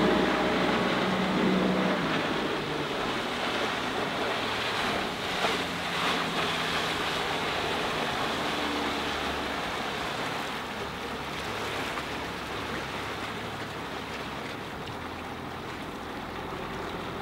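Evinrude E-Tech 75 hp two-stroke outboard running on a small fibreglass boat as it turns, its engine note strong for the first couple of seconds and then sinking into a steady rush of water from the hull and wake. The sound grows gradually quieter as the boat eases off and passes at lower speed.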